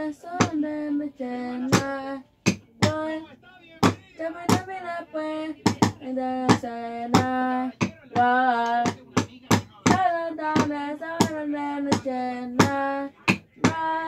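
A single voice singing a wordless melody in held notes, over sharp clicks coming roughly every two-thirds of a second.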